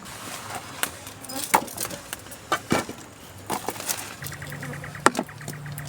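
Irregular sharp cracks and snaps of something dry and brittle breaking. About four seconds in, a low steady engine hum with a fast ticking comes in, like a motor vehicle running in the distance.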